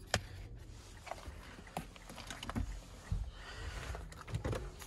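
Quiet handling noises in a car interior: a few scattered light clicks and knocks with faint rustling, as a key fob is handled in its plastic box and a hand reaches under the dashboard.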